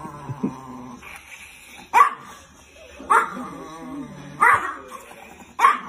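Small white dog barking: four sharp single barks, about one every second or so, the first about two seconds in.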